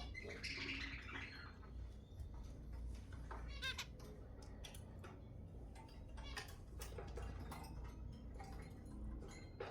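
Zebra finches calling: a scatter of short, sharp, pitched calls and chatter at irregular intervals over a low steady hum.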